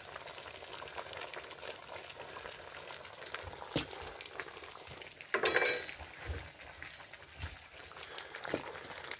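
Stew simmering and bubbling in a cast-iron potjie pot over a wood fire, with scattered faint crackles. A brief louder sound comes about halfway through.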